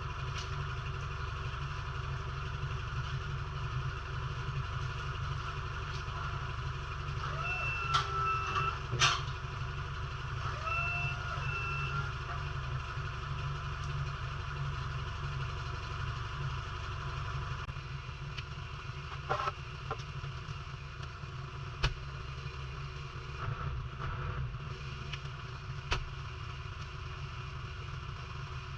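A vehicle engine runs steadily, with short reversing-alarm beeps twice, about 8 and 11 seconds in, and a few sharp metallic knocks.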